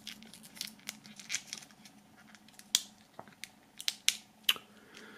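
A small folded paper leaflet sealed with tape being pried open and unfolded by hand: irregular crinkling with sharp crackles and clicks, a cluster of louder ones in the second half.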